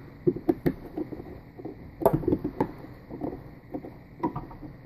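Small screwdriver driving nylon screws into a quadcopter's flight-controller stack on a carbon-fibre frame: irregular light clicks and taps with handling rustles.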